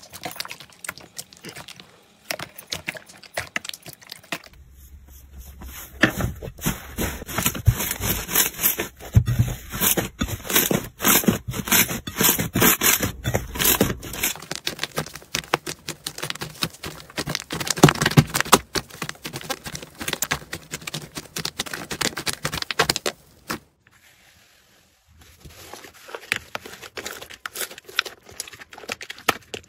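Hands squishing, stretching and kneading slime, giving dense sticky crackling, popping and clicking. The sound changes character a few times as the slime changes, with a brief quiet gap a little past two-thirds of the way through.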